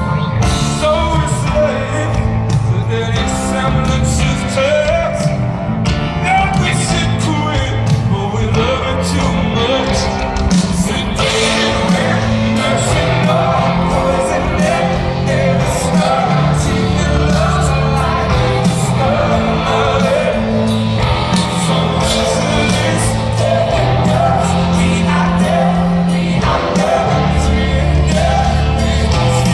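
Live rock band playing a song with a male lead singer, bass, drums and guitar, heard from far back in the audience of an outdoor amphitheatre.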